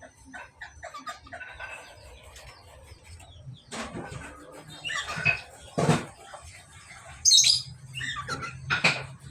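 Budgerigars chirping and chattering in quick short notes, with a few louder sudden sounds of wing flapping and squawking, the loudest about two thirds of the way in.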